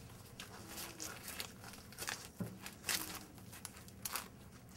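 Green husks being pulled and torn off fresh ears of corn by hand: irregular crisp rustling and tearing.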